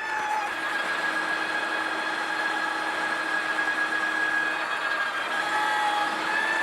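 Energica Eva electric motorcycle's drive whining steadily while riding, its pitch nearly constant and shifting slightly near the end, with wind rush on the microphone.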